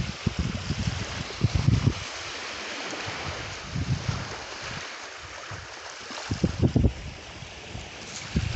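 Wind buffeting the microphone in irregular low gusts, strongest about a second and a half in and again near the end, over a steady rush of surf.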